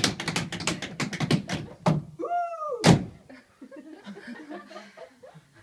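A quick run of sharp taps, then a short high-pitched vocal squeal that dips and rises, and a single loud knock. Faint audience laughter and murmuring follow.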